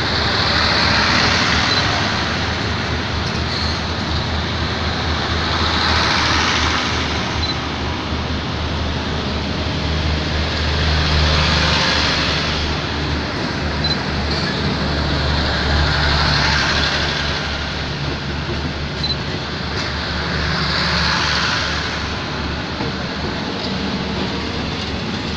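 Passenger coaches of a Thai special express train rolling past along the platform: a steady rumble and wheel-on-rail rush that swells about every five seconds.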